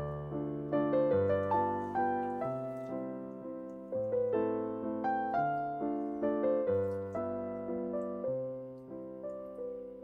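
Background piano music: a gentle melody of single notes over low chords, each note struck and fading away.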